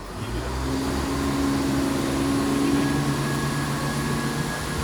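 Underfloor diesel engines of a Class 170 Turbostar diesel multiple unit running under power, with a steady low drone that builds in loudness over the first second and then holds.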